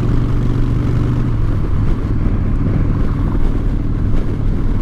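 Harley-Davidson Dyna Fat Bob's V-twin running steadily under way through Vance & Hines short shots exhaust, with wind rushing over the microphone. The engine note drops slightly a little over a second in.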